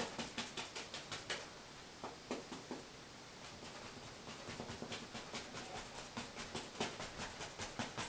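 A two-inch bristle brush tapping dark oil paint onto a canvas on an easel: soft quick taps, several a second, in runs with short pauses between them.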